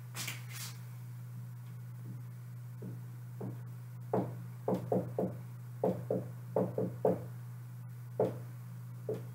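Dry-erase marker writing on a whiteboard: a run of short tapping, squeaking strokes that starts about three seconds in and lasts about five seconds, over a steady low hum.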